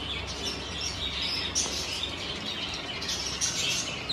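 Small birds chirping continually in a busy, overlapping chorus, over a steady low hum.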